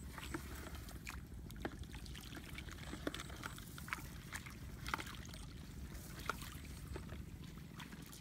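Feet wading through the shallow water of a flooded rice paddy: sloshing with scattered short splashes, over a steady low rumble.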